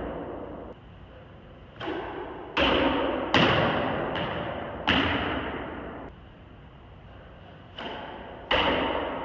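Loaded barbell dropped on a gym floor: a series of about six heavy thuds, each with a clatter that rings out over a second or so.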